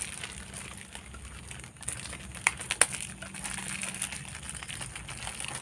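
Thin plastic bags crinkling and rustling as a bag packed with steamed bamboo shoots is handled and tied tight, with a few short crackles near the middle.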